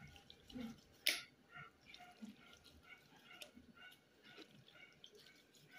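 Quiet knife work on raw beef tripe (librillo), cutting it into small pieces and dropping them into a glass bowl: faint soft ticks and wet handling sounds, with one sharp click about a second in.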